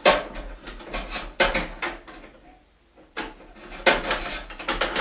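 Plastic front control panel of a microwave oven being worked loose from its clips on the metal chassis: a run of sharp clicks and knocks, with a short lull about halfway through.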